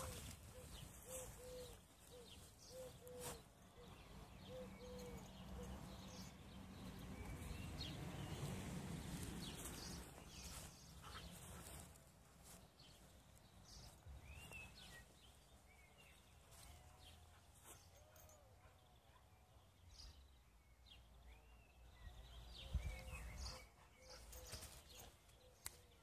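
Quiet garden ambience with small birds chirping now and then. A low rumble swells and fades about a third of the way in, and a dull low thump comes near the end.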